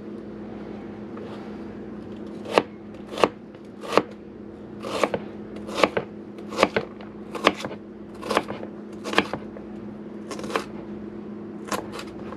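Knife roughly chopping onion, with slow, uneven strokes about one a second that start a couple of seconds in.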